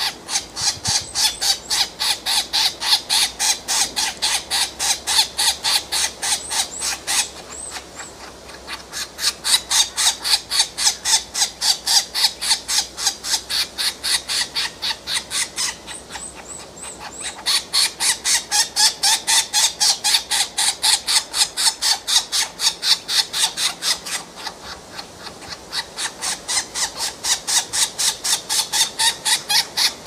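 Green woodpecker nestlings begging for food at the nest hole: a rasping call repeated about three times a second in long runs, with short pauses about seven, sixteen and twenty-four seconds in.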